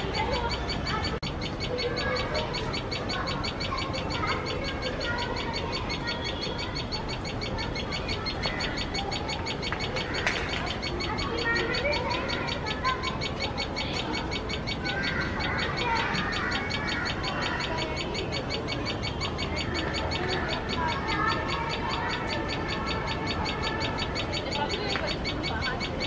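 Common tailorbird calling in repeated bouts of sharp chirps, behind a fast, even, high-pitched pulsing.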